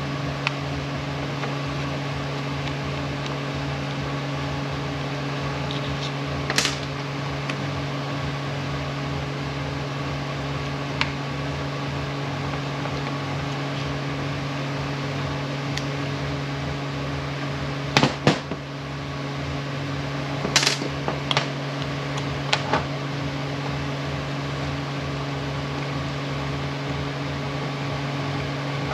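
Steady low machine hum in a workshop, with a few sharp metallic clicks and clinks from small parts of an air impact wrench being handled and fitted on the bench, the loudest cluster about two-thirds of the way through.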